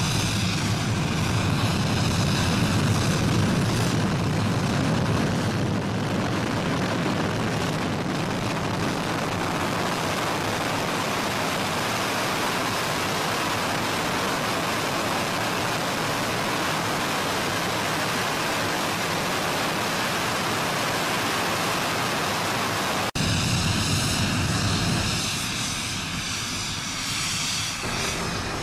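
Jet aircraft engine noise, a loud steady rush. About 23 seconds in it cuts abruptly to another take with a swirling, phasing sound that eases off slightly near the end.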